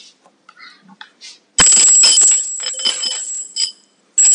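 A metal coin rattling and clinking inside a glass jar, with a bright ringing tone. It starts suddenly about one and a half seconds in, sounds repeatedly for about two seconds, and rings again near the end.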